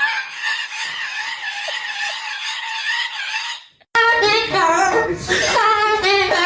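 A parrot screeching in one long, rasping, wavering scream that cuts off abruptly about four seconds in. It is followed by a high voice singing a tune.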